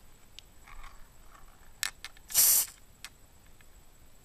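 Aerosol can of silicone spray giving one short hiss, about half a second, onto a rubber airsoft hop-up bucking to lubricate it, about two and a half seconds in. Small clicks and handling taps come before it.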